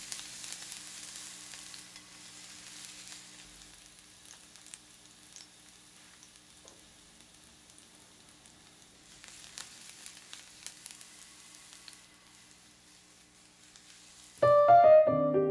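Mixed vegetables sizzling in avocado oil in a nonstick frying pan, with scattered small pops and a faint steady hum underneath. The sizzle grows quieter over time, and piano music starts abruptly near the end.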